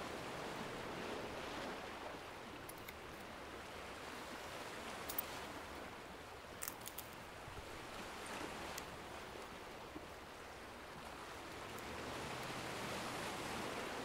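Faint recorded ocean waves: a steady wash of surf that swells slightly near the end, with a few faint clicks scattered through it.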